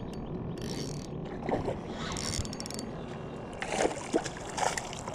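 Small skiff on the water with a steady wash of water and wind noise, plus light knocks and rustles from hands working a spinning rod and reel. A few short, sharper sounds come about a second and a half in and again near the end.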